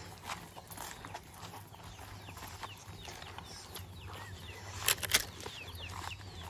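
Footsteps of people and a cow scuffing and crunching over dry, twig-strewn ground, with birds chirping in the background. Two loud sharp cracks come about five seconds in.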